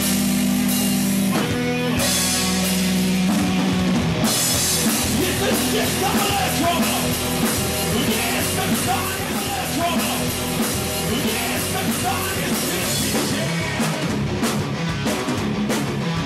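Live rock band playing: electric guitars, bass guitar and drum kit, loud and unbroken.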